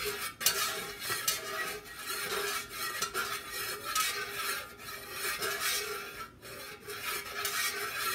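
Two metal skewers stirring and scraping against the inside of a metal wax-pouring pitcher, mixing dye into hot melted wax.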